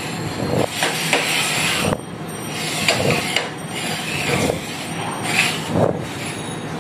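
Small upturned bowls being slid and shuffled around on a tabletop, scraping irregularly with several light knocks.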